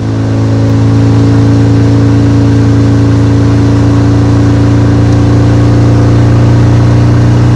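A boat's Ford 2.3-litre four-cylinder engine running steadily under way, with the rush of water and wake beneath it. It fades in over the first second, then holds one even pitch.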